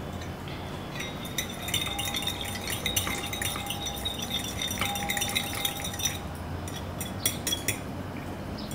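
Utensils and dishes clinking, with scattered light taps and clicks of metal or glass against a bowl or plate during food preparation.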